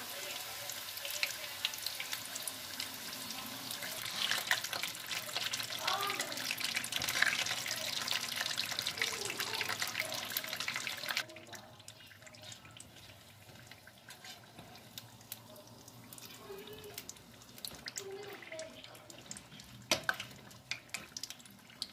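Samosas and spring rolls frying in hot oil, a dense sizzle and crackle that drops off suddenly about eleven seconds in and carries on quieter. A couple of sharp clicks about twenty seconds in, as a slotted spatula lifts the pieces from the pan.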